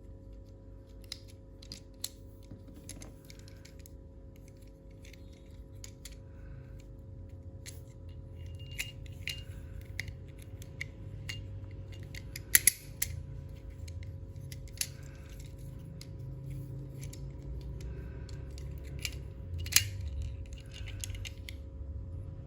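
Scattered snips and sharp clicks of a plastic toy and its packaging being handled and cut, over a steady low hum; the two loudest clicks come about halfway through and near the end.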